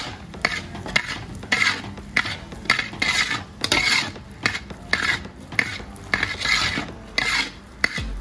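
Spatula scraping and stirring in a cooking pan: rasping strokes with sharp clinks, about two a second, as a batch of peanut chikki is worked.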